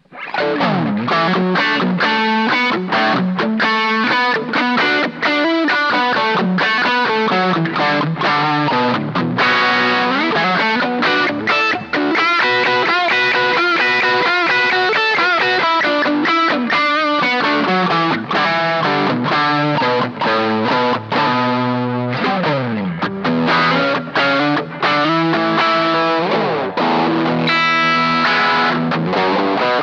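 Les Paul electric guitar played through a Pedrone Slim Pegasus tube amplifier, recorded direct from the amp: a continuous stream of quick notes and chords, with a long pitch slide about two-thirds of the way through.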